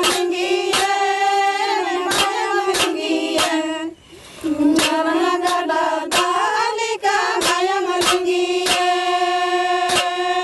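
Adivasi women singing a folk song together in unison, with metal hand cymbals struck on a steady beat about every two-thirds of a second. The singing and cymbals break off briefly about four seconds in, then start again.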